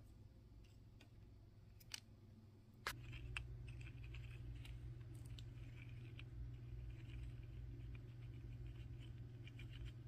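Faint scratching and rustling of small paper engine parts handled between fingers, with two sharp clicks near the start, over a low steady hum.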